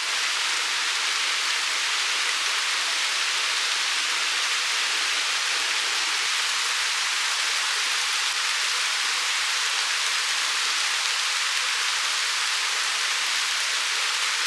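Steady hiss of water, even and unbroken, with almost no low rumble.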